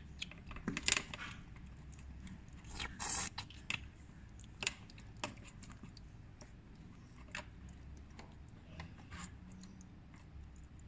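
Small plastic toys being handled on a tabletop: scattered light clicks, taps and scrapes, with a cluster of them about three seconds in.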